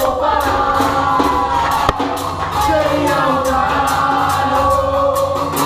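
A group of football supporters singing a chant together over a bateria of surdo bass drums and a stick-played drum keeping a steady beat.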